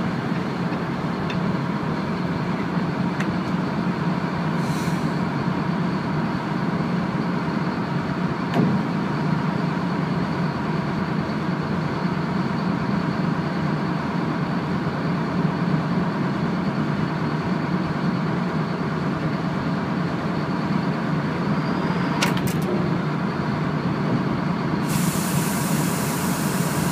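Tugboat's diesel engines and deck machinery running with a steady, loud rumble and hum, mixed with rushing water from the wake. A few faint clicks, and a hiss comes in near the end.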